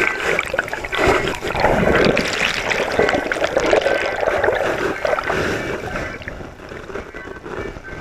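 Water sloshing and trickling, uneven in level, easing off near the end.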